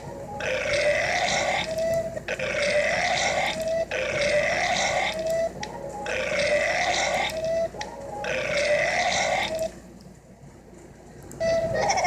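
Five long burps in a row, each lasting about a second and a half, rising in pitch and ending on a short held note; the five are nearly identical. Near the end there is a quieter pause before another sound starts.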